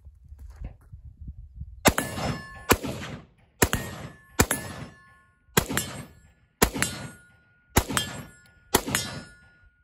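AR-15 rifle fired eight times in slow semi-automatic succession, about one shot a second, each shot followed by a brief metallic ring. It is feeding from a magazine that has just been dumped in sand and shaken out, and it cycles without a stoppage.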